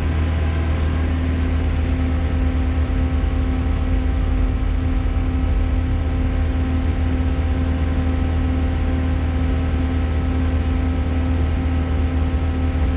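JCB 541-70 telehandler's diesel engine running steadily, heard from inside the cab as a constant low hum.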